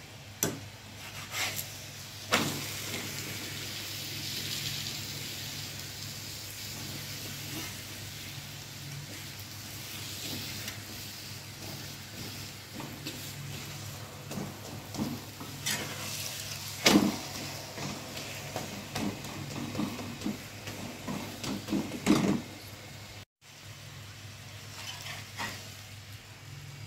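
Oil sizzling under a flatbread frying on an iron tawa, with a metal spatula scraping the bread and knocking against the griddle several times.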